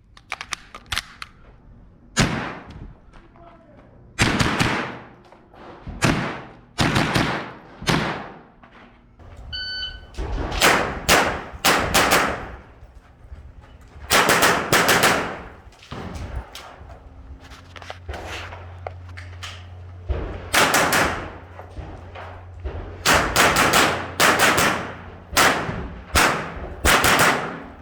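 A string of gunshots fired at an irregular pace: single shots and quick runs of two to four, with pauses between. Each shot has a short echo.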